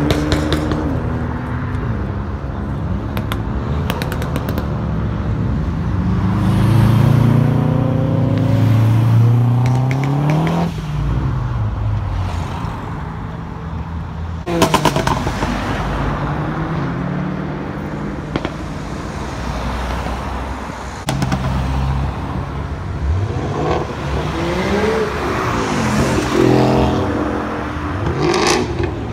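Sports cars driving past one after another, their engines revving up and falling back as each accelerates by, with a few sharp cracks among them.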